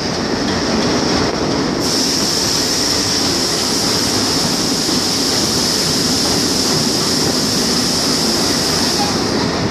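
Train running on the rails: a steady rumble of wheels on track, with a high hiss that comes in sharply about two seconds in and eases off near the end.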